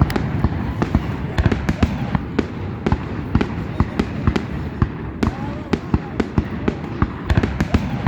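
Fireworks show: a rapid, irregular run of bangs and crackles, several a second, over a continuous low rumble of explosions.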